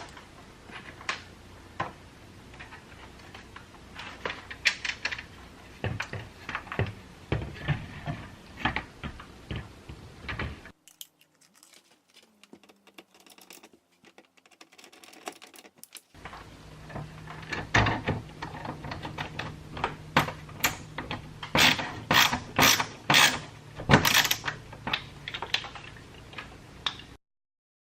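Irregular clicks, taps and knocks of hand work on a window frame and shade assembly, ratchet-like at times. A near-silent gap of about five seconds falls in the middle, and a low steady hum runs under the clicking in the second half.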